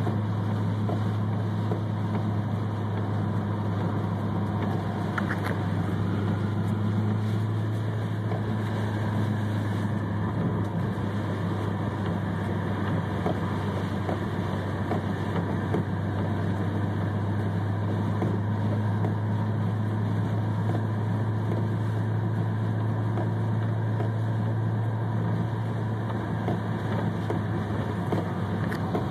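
Inside the cabin of a Pontiac GTO with a V8, driving through a torrential downpour: a steady low engine and road drone under an even hiss of heavy rain on the car, with a few faint ticks.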